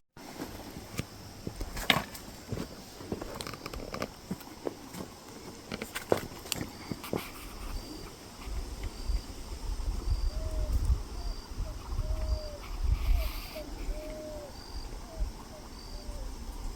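Birds calling: a short high note repeated about twice a second, and lower short curved calls in the second half. Underneath are wind buffeting the microphone and scattered knocks.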